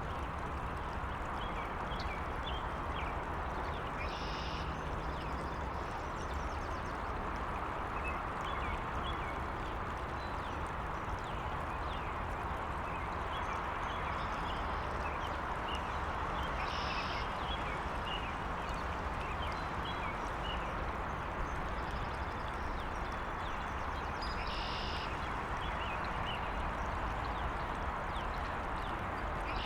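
Country outdoor ambience: a water stream's steady rush with the low rumble of distant highway traffic beneath, and small birds chirping throughout. A louder bird call sounds four times, spread across the stretch.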